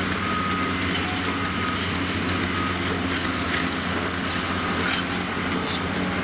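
Heavy demolition excavator's diesel engine running steadily, with an intermittent high tone coming and going and scattered crackling.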